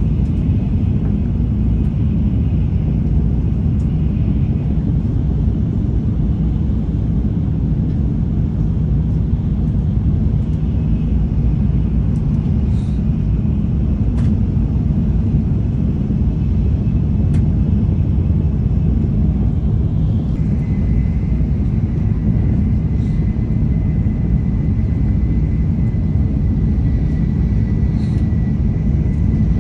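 Shinkansen train running at speed, heard inside the passenger car: a steady, loud low rumble of the running train. A faint high steady tone joins about two-thirds of the way through.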